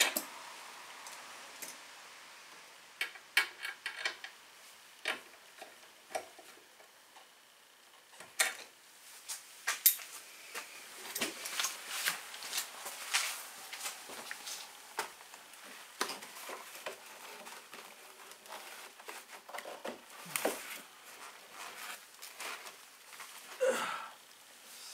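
Irregular metallic clinks, taps and knocks of hand tools and metal parts being handled in a car's engine bay as the diesel fuel filter bracket is fitted and the battery is set back in its tray. No engine is running.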